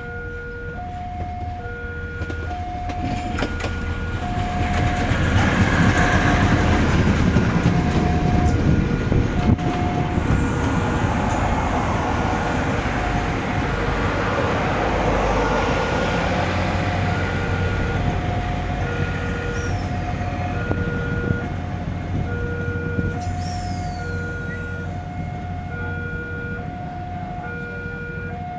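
Level-crossing warning alarm chiming its repeating electronic two-tone signal while a train passes. The train's rumble swells from about four seconds in, is loudest for the next several seconds, then slowly fades as the alarm keeps chiming.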